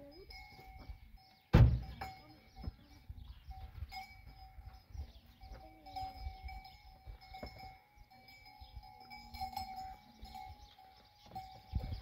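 Goats calling around a parked pickup, with one loud, sharp thump about one and a half seconds in.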